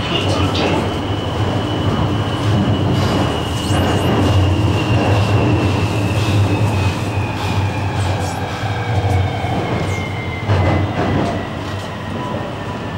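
Inside a CSR Zhuzhou A5 metro car with IGBT-VVVF traction: the low rumble of wheels on rail under the whine of the traction inverter and motors, which glides slowly down in pitch as the train slows for the station. A few knocks come from the running gear about ten seconds in.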